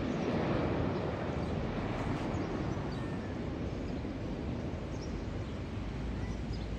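Steady rumble and hiss of a Boeing 787-9 airliner's engines after landing, easing slightly, with faint bird chirps.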